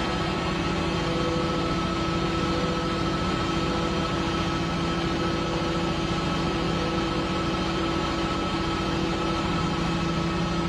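Mechanical cherry harvester running steadily: a constant engine drone with a few held humming tones, unchanging throughout.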